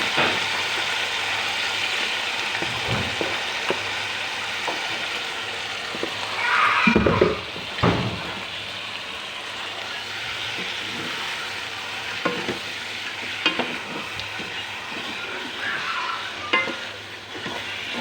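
Turmeric-coated chicken frying in a pan with a steady sizzle, stirred with a spatula that knocks and scrapes against the pan now and then; the stirring is loudest about seven seconds in.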